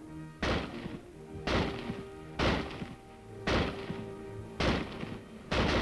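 M1 Garand rifle firing semi-automatically: six shots about a second apart.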